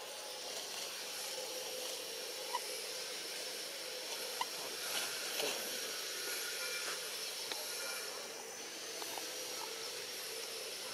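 Steady, high-pitched drone of forest insects over an even hiss, with a few faint short chirps and clicks.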